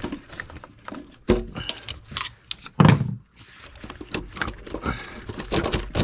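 Clattering, clicks and knocks as a valve cover is worked loose and lifted off a GM 3.6L V6, its captive bolts jingling in their rubber bushings. The loudest knock comes about three seconds in.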